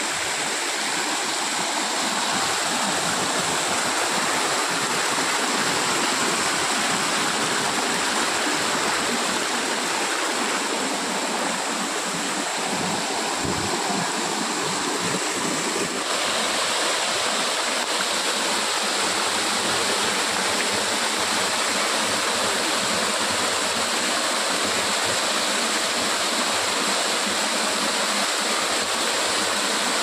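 Small rocky waterfall and stream: water pouring and splashing over stones in a steady rush, a little different in tone from about halfway through.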